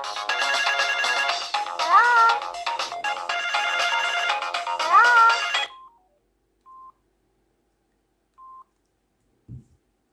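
Mobile phone ringtone playing a melodic phrase that repeats about every three seconds, each with a rising swoop, then cutting off suddenly about six seconds in. Two short faint beeps follow, and a brief low thump near the end.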